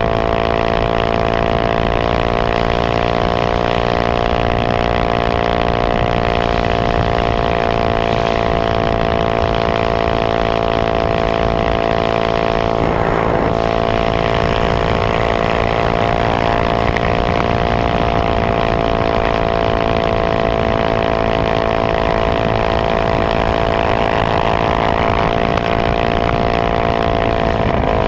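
Honda GX160 single-cylinder engine on a minibike running at speed, its pitch held nearly steady, with a brief wobble about halfway and a slight drop in pitch right at the end. Wind noise rushes underneath.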